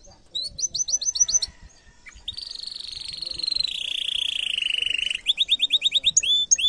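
Domestic canary singing: a quick run of repeated rising notes, then a long rapid trill that slowly falls in pitch, then more fast repeated notes and a few slower upswept notes near the end.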